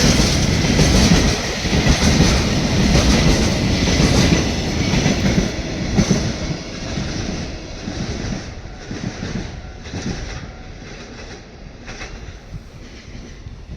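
A freight train of Taki tank wagons rolling past on the rails, its wheels clacking over the rail joints. The sound grows steadily quieter over the second half as the train moves off.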